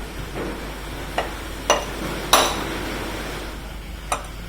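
Gentle hammer taps on the crankshaft of a Honda Vario scooter engine: four sharp metallic strikes, spaced unevenly, the loudest about halfway through. The taps are meant to true a crankshaft that the mechanic predicts is bent and behind the scooter's growling under throttle.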